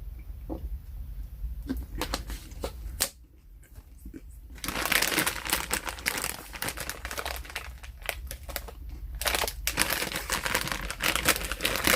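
Candy packaging crinkling as it is handled: a few scattered crackles at first, then steady dense crinkling from about four and a half seconds in, with a short pause near nine seconds.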